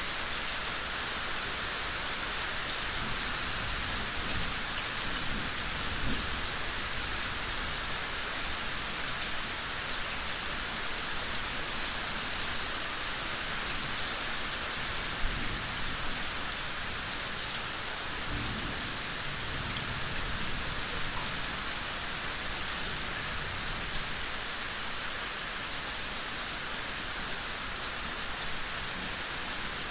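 Steady rain falling and pattering on surfaces, with low thunder rumbling twice, a few seconds in and again a little past the middle.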